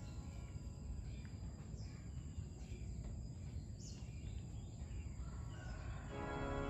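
Outdoor garden ambience: a steady low background noise with a brief bird chirp about four seconds in, under faint background music that grows louder about six seconds in.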